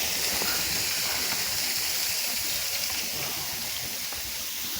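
Steady rush of flowing water from a stream or waterfall.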